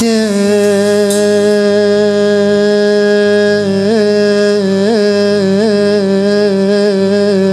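Male singer holding one long note of an Arabic pop song, with a few short wavering ornamental turns midway, over live band accompaniment.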